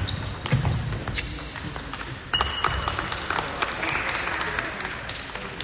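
Table tennis rally: the ball clicks sharply off bats and table, and shoes squeak on the sports hall floor. The hits come thick in the first half and grow softer and sparser toward the end.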